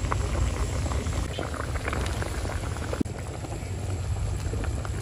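Wok of soup at a hard boil, bubbling and popping continuously over a steady low rumble.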